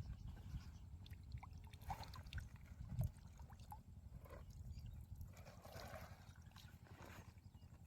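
Faint water sloshing and trickling with scattered small knocks, over a low rumble.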